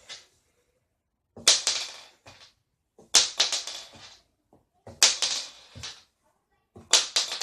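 A small .410 shotgun shell landing after a flip and clattering as it bounces and tips over, four times in a row. Each landing is a quick run of clicks that dies away within about a second, with silence between them.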